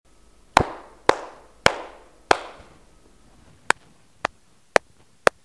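Hand claps, about two a second: four in an ordinary empty room, each ringing on in a fading reverberant tail, then four in an anechoic chamber, short and dry with no echo.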